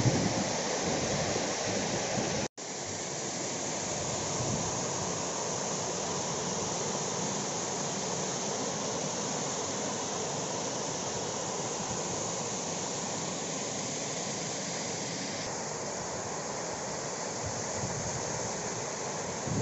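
Waterfall's steady rush of falling water, cutting out for an instant about two and a half seconds in.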